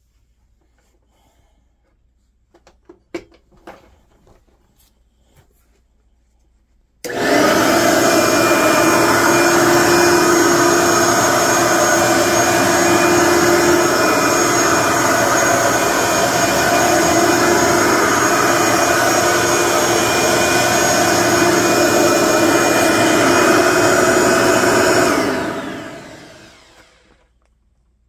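Vintage Bissell bagged upright vacuum cleaner: after a few faint clicks, the motor switches on suddenly about seven seconds in and runs steadily with a constant whine, then is switched off near the end and winds down over a couple of seconds.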